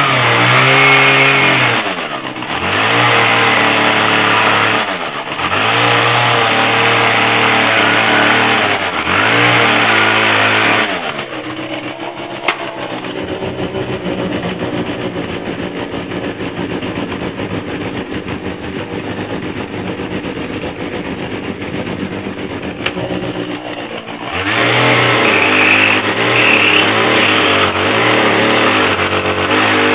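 Husqvarna 240 two-stroke chainsaw running, revved up and let back down in repeated bursts about every three seconds. It runs lower and steadier through the middle, then revs hard again near the end.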